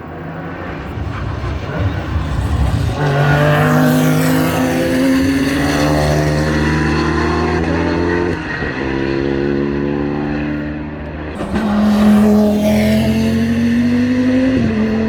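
GT3 race cars accelerating hard past on full throttle, each engine note climbing and dropping back at upshifts a few times. A second car comes through louder near the end.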